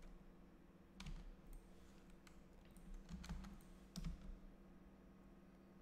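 A few scattered computer keyboard keystrokes, about five short clicks spread over several seconds, over a faint steady hum.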